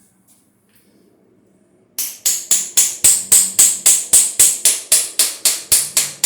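A quick run of sharp, evenly spaced metallic strikes, about four a second, starting about two seconds in: tool work on metal on a Chevy 307 small-block engine being torn down.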